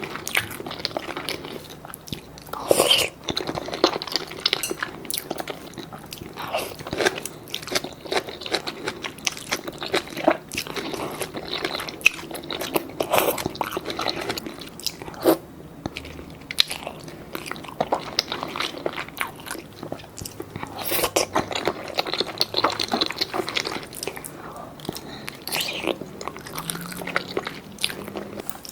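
Close-miked eating: a person biting and chewing food, with a steady run of crunching, clicking and wet mouth sounds.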